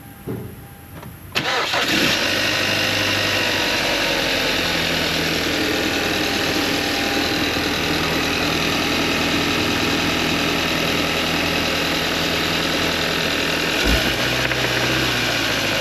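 Hyundai GDI engine starting: it catches about a second and a half in, its speed drops and settles over the next couple of seconds, and it runs steadily with a brief low bump near the end. The engine was run with only about a quart of oil and has a knock.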